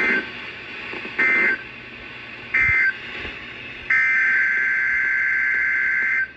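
NOAA Weather Radio SAME data bursts: raspy two-tone digital buzzes. Three short identical bursts about a second apart mark the end of the warning message. About a second later comes a longer burst, the header of the next alert.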